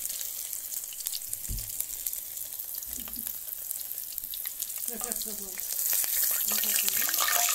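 Tabakh maaz lamb ribs sizzling and crackling as they fry in hot oil in a steel wok, getting louder about six seconds in.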